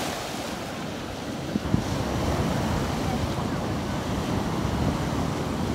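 Wind buffeting the microphone over surf washing on a pebble beach, with two brief knocks a little under two seconds in.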